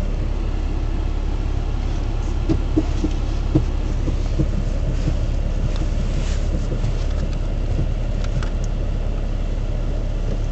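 Steady low rumble of a car engine idling, heard inside the cabin, with a few faint clicks and knocks a few seconds in.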